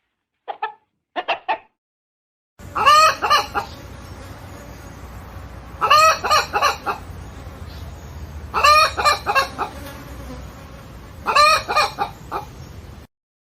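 Chicken calls: a couple of short clucks, then four loud pitched calls of about a second each, repeated about every three seconds over a faint steady background hum.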